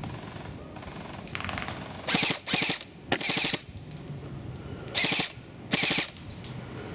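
Airsoft electric guns firing on full auto: five short rattling bursts of rapid shots. Three come in quick succession about two seconds in, and two more follow about five seconds in.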